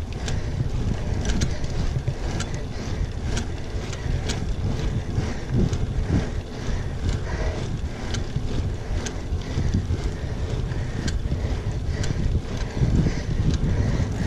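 Wind buffeting the microphone of a bike-mounted action camera on a moving road bike, over a steady rumble of riding, with scattered sharp clicks throughout.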